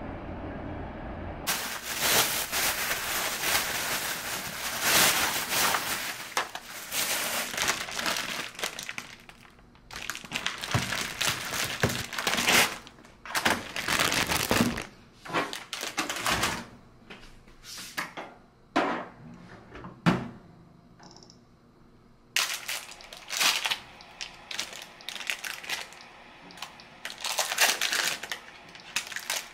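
A thin plastic bread bag crinkling and rustling as it is handled, in repeated bursts with short pauses, with a few sharp clicks mixed in.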